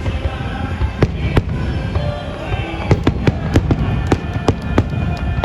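Fireworks bursting in a string of sharp bangs over a steady low rumble, a couple about a second in and then coming thick and fast, several a second, from about three seconds in.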